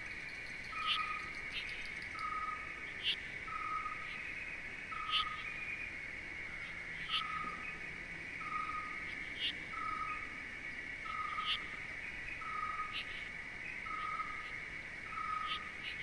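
Tropical nature ambience: a steady high insect drone, a bird repeating a short whistled note about once a second, and occasional sharp chirps from other birds.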